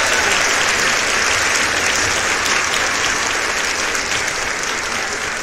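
Applause, many hands clapping together, slowly fading toward the end.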